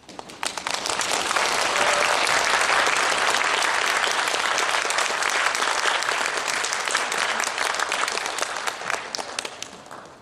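Audience applauding: the clapping swells up within the first second, holds steady, then dies away near the end.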